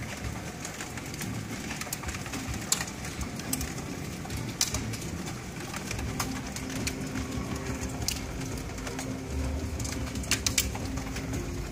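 Hail storm on a wooden deck: a steady hiss of heavy rain broken by scattered sharp ticks of hailstones striking the boards and patio furniture.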